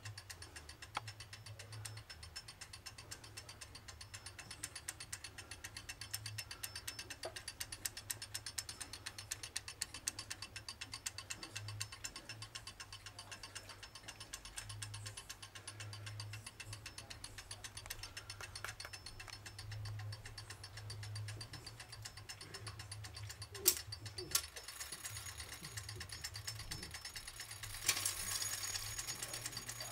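Antique 30-hour longcase clock movement running, its escapement ticking in a quick, even run, with two louder clicks about three-quarters of the way through.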